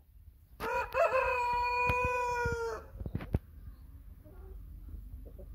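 A rooster crowing once: a single crow of about two seconds that holds a steady pitch and stops abruptly, followed by a few sharp clicks.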